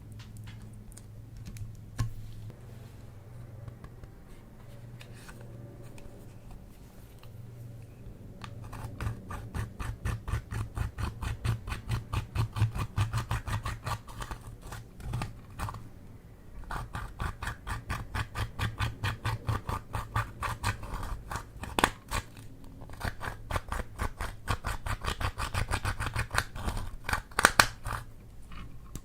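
Slime being kneaded and squished by hand, making long runs of rapid clicks and pops at several a second, starting about a third of the way in with two short breaks, over a steady low hum.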